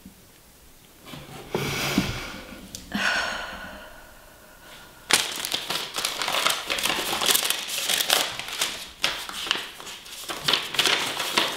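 Paper being handled: a short rustle, then from about halfway through a dense, irregular crinkling and crackling.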